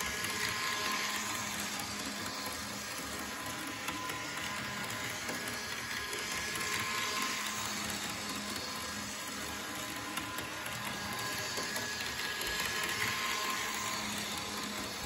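Bachmann Thoroughbred HO-scale Norfolk Southern model train running forward around an oval track: a steady whir of the locomotive's electric motor and gearing with wheels on the rails. It swells and fades about every six seconds as the train circles close by and away.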